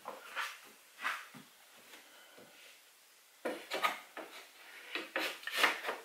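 A wooden panel being pushed and fitted by hand against a wooden fireplace frame: short scrapes and light knocks of wood on wood, two early on their own, then a quick run of them over the last two and a half seconds.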